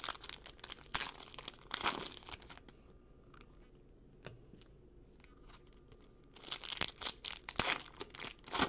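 Foil trading-card packs being torn open and crinkled by hand. There is a dense spell of crackling tearing for the first few seconds, a quieter stretch with a few soft ticks, then another spell of crinkling near the end.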